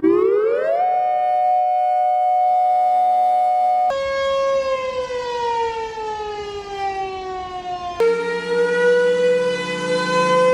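Outdoor tornado warning sirens, three recordings cut together. The first winds up in pitch and then holds a steady tone. About four seconds in it cuts to another siren whose pitch slowly falls, and about eight seconds in to a third siren holding a steady tone over a low hum.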